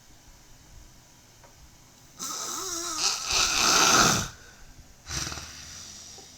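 A person snoring loudly in their sleep: one long snore starts about two seconds in and grows louder for about two seconds, then a shorter breath follows about a second later and fades away.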